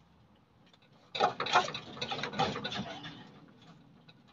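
A sudden burst of rapid metallic clicking and clattering, starting about a second in and fading out after about two seconds, from tools and metal parts being worked while the transmission is pulled loose from the engine.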